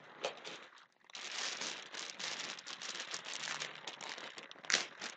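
Thin plastic packaging bags crinkling and rustling as they are handled and pulled out of a cardboard box. A few short rustles come first, then a continuous rustle from about a second in, with one sharper crackle near the end.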